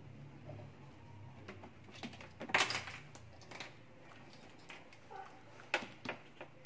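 Abyssinian guinea pig munching fresh vegetables: irregular small crisp crunches and clicks of its teeth, with a louder bout of crunching about two and a half seconds in and another sharp crunch near six seconds.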